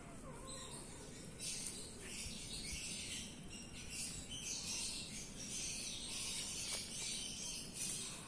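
Kittens eating from a plastic tub: irregular bouts of soft, high-pitched licking and chewing sounds, a few each second or two.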